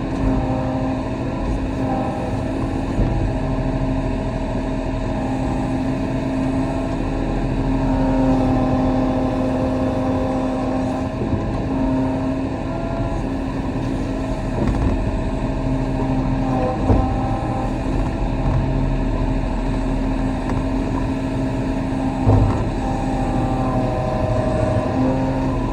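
Mini excavator's diesel engine running steadily under working load, with hydraulic whine that rises and falls a little in pitch. A few short knocks come from the digging.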